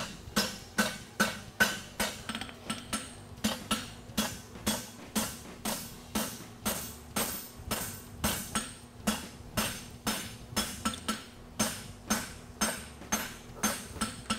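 A farrier's hammer strikes red-hot 5/8-inch square steel bar on an anvil in a steady rhythm of about two to three blows a second, each blow ringing briefly off the anvil. The blows are drawing out and mushrooming the hot bar while the horseshoe is being forged.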